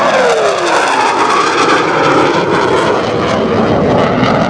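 F/A-18 Hornet's twin jet engines in afterburner on a fast pass. Its whine drops in pitch as it goes by in the first second, then gives way to a loud, steady roar.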